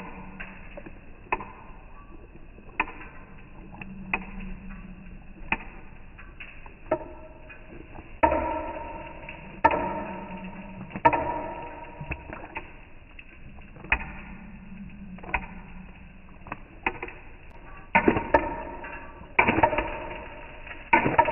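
Eggs being beaten in a bowl: a utensil knocks against the side of the bowl, which rings briefly after each knock, about once every second and a half, then quicker and in clusters near the end.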